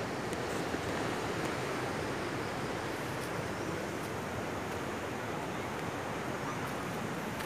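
Steady rushing noise of ocean surf breaking on the shore, even and unbroken.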